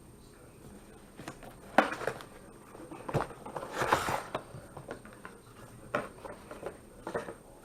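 Hands handling hardware and packaging: a series of irregular clicks and knocks, with a brief rustle about halfway through.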